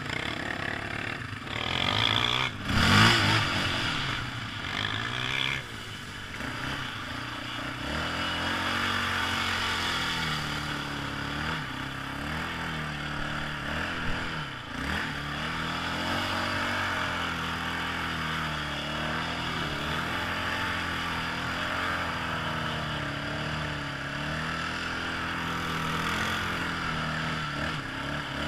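Quad (ATV) engine running under changing throttle, its pitch rising and falling as the bike rides over rough ground, with a loud bump about three seconds in.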